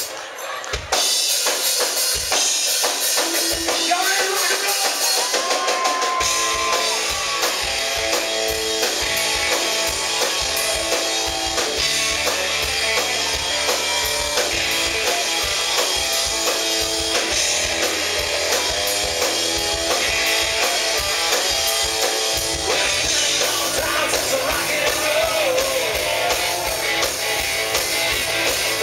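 Live rock band playing loudly: distorted electric guitars, bass guitar and drum kit, with a man singing over it. The low end drops out for about the first six seconds, then bass and kick drum come back in with the full band.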